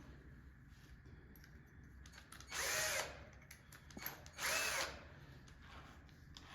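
Power drill run in two short bursts about two seconds apart, each lasting about half a second, its motor pitch rising and falling as the trigger is squeezed and released.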